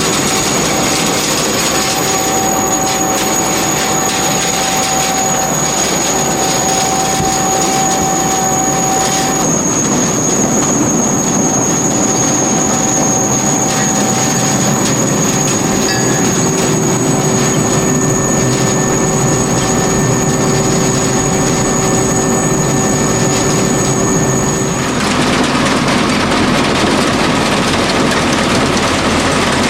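Dewulf RS3060 self-propelled potato harvester running: a loud, steady mechanical clatter with high steady whines over it. The sound changes abruptly about 25 seconds in.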